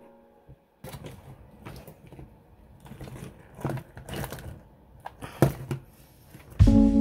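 Irregular clicks and knocks of hands working on an RC truck's plastic parts and tools, with a few sharper clacks in the middle stretch. Background music fades out at the start and comes back in just before the end.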